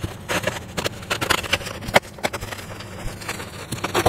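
Packing material being handled and pulled open by hand: irregular crackling rustles and sharp clicks, with one louder click about two seconds in.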